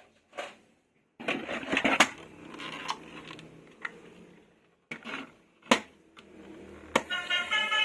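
Plastic toys and packaging being handled: rustling with a few sharp clicks and knocks. Near the end a tune starts.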